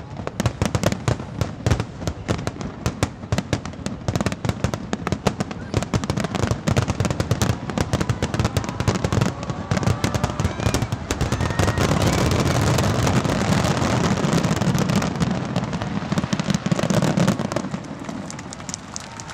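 Aerial fireworks shells bursting in rapid succession with dense crackling. About halfway through they swell into a continuous barrage of booms and crackle, then thin out near the end.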